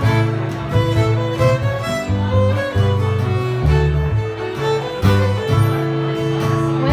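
Live acoustic string trio playing an instrumental passage: a fiddle carries the melody over strummed acoustic guitar and a plucked upright bass line.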